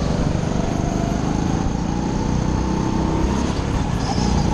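Racing go-kart's small engine running hard, heard close from a helmet-mounted camera, its pitch drifting up and down with the throttle through the corners.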